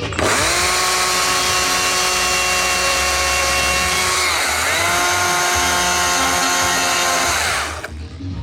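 Chainsaw revving up to full throttle and running flat out. Its pitch dips briefly about halfway through and climbs back, then it cuts off near the end.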